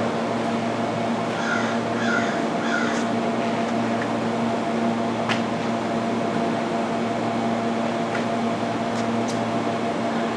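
Steady hum of a stationary Amtrak passenger train standing at the station platform, with an even drone and a couple of steady tones. A few short chirps come about two seconds in.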